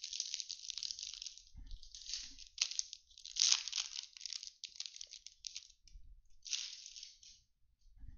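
Foil wrapper of a 2020 Topps Stadium Club baseball card pack crinkling and tearing as it is ripped open by hand, in a run of crackly bursts, with a last crinkle about six and a half seconds in.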